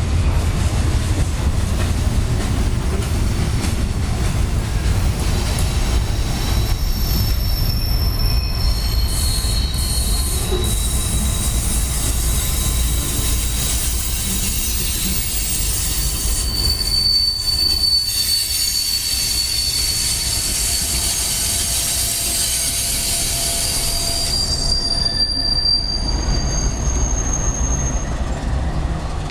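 Freight train cars rolling past close by: a steady low rumble of steel wheels on rail, with high-pitched wheel squeal coming and going through the middle and fading near the end.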